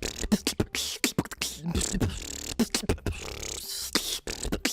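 Human beatboxing: a fast run of mouth-made kick drums, hissing snare and hi-hat sounds and clicks, with short gliding hums and bass tones between the hits.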